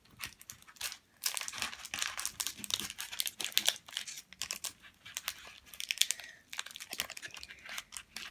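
Foil wrapper of a Pokémon trading card booster pack crinkling and tearing as it is pulled open by hand: a dense run of sharp crackles, easing briefly about halfway through.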